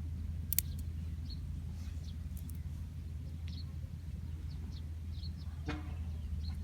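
A bird giving short high chirps about once a second over a steady low rumble, with a sharp click about half a second in and a knock near the end.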